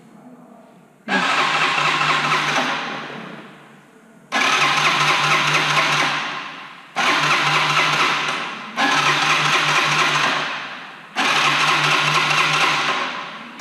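Electric starter cranking a Kymco Zing II 125cc motorcycle engine in five bursts of two to three seconds each. Each burst starts sharply and tails off, and the engine does not catch. The bike has stood unused for about five years and is cranking on a newly fitted battery.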